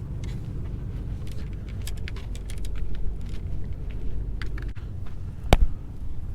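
Steady low rumble with scattered light clicks and rattles, and one loud knock about five and a half seconds in.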